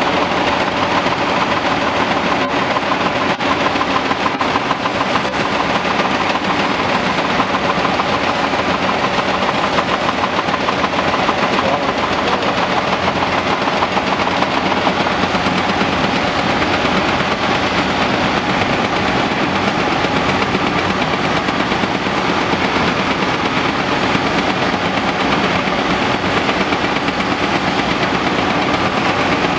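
Hydraulic breaker hammer on a Caterpillar 345D L excavator pounding reinforced concrete: a rapid, unbroken rattle of blows that holds steady throughout.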